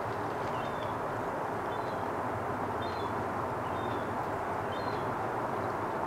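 Steady outdoor background noise, a low even rumble, with short high bird chirps repeating about once a second.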